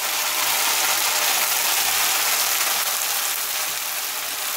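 Onions frying in oil in a kadhai, sizzling steadily, as a wet masala paste is scraped into the hot oil from a steel grinder jar with a metal spatula, with light scraping clicks of metal on metal.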